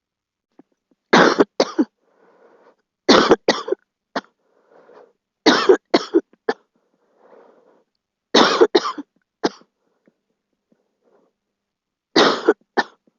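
A girl coughing: five loud bouts of two to four quick coughs each, a few seconds apart.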